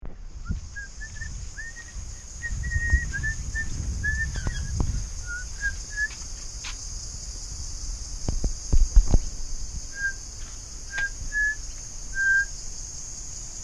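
Steady high drone of insects, with a bird's short whistled chirps in two runs. Low rumbles and knocks from the camera being handled, loudest a little past the middle.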